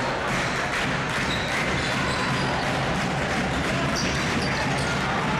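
A basketball being dribbled on a hardwood gym court under a steady murmur of the crowd.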